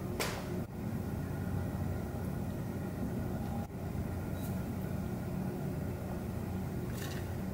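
A few light clicks and taps of a measuring spoon against a glass bowl as seasoning is added, over a steady low background rumble.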